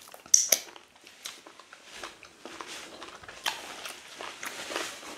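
Mouth sounds of eating fufu and meat in ogbono soup by hand: chewing, with a string of short wet lip smacks and clicks, the sharpest about half a second in.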